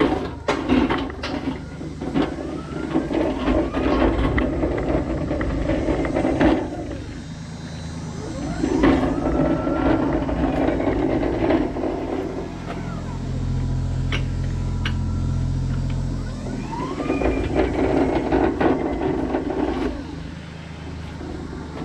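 Raymond/Toyota electric pallet jack driving over rough concrete: a rumbling, rattling ride, with the drive motor's whine rising in pitch a few times as it speeds up.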